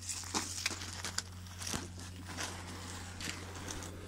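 Foil-faced duct insulation crinkling and rustling in irregular bursts, with a few sharp clicks, as it is handled and trimmed by hand, over a steady low hum.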